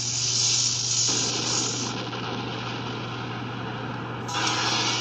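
Tokusatsu explosion sound effects played through a tablet's speaker: a continuous noisy crackling rush, with a fresh, louder blast about four seconds in, over a steady low hum.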